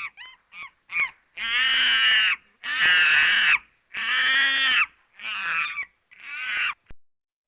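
A series of harsh animal calls: a few short calls, then three long ones of about a second each, then two shorter ones.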